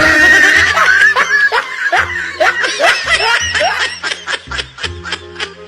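Laughter in a quick run of repeated short bursts that speed up toward the end, over background music with a steady bass line.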